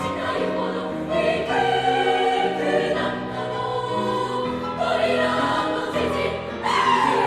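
Girls' choir singing in three-part treble harmony with piano accompaniment, the voices holding notes and moving to new chords every second or so.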